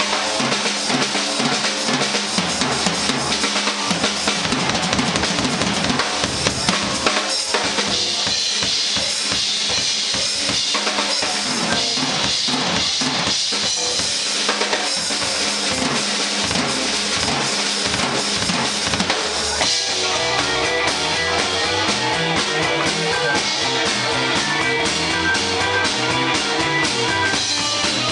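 Drum kit solo of snare, bass drum and cymbals played live. About twenty seconds in, the rest of the band comes back in with electric guitar.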